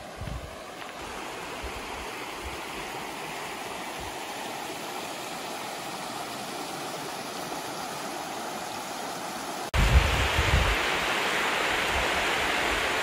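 Shallow, fast river rushing over a stony bed, a steady hiss that grows louder over the first couple of seconds. About ten seconds in it cuts abruptly to a louder, brighter hiss with wind buffeting the microphone.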